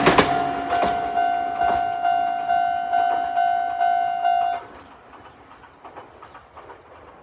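Japanese railway level-crossing alarm in the old standard tone, ringing about twice a second, each stroke fading before the next, then stopping suddenly about four and a half seconds in. Under the first second or so, the passing train's wheels click over the rail joints as it moves away.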